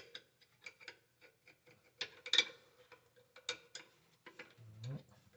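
Irregular metallic clicks, knocks and scraping as a washing machine's drive motor and its mounting brackets are handled and fitted into place, the loudest scrape about two seconds in. A brief low hum near the end.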